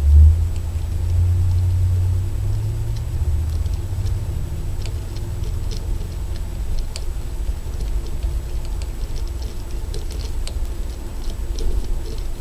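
A steady low rumble with faint, scattered clicks and scratches from small parts being handled.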